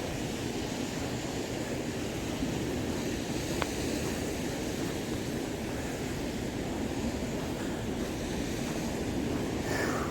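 Steady wind and gentle surf on a beach, with one brief click a little over three seconds in.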